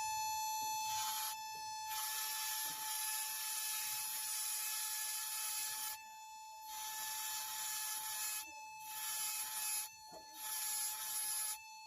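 A tool rasping on wood in long continuous stretches, broken by brief pauses.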